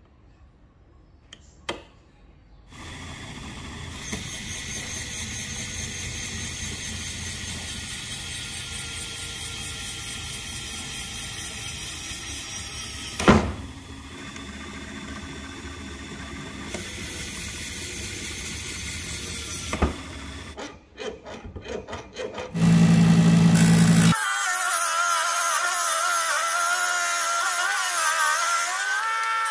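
Homemade belt-driven bench drill's DC motor running steadily, with a sharp click about 13 seconds in and another near 20 seconds. After a stutter of clicks and a brief loud hum, background music takes over for the last five seconds.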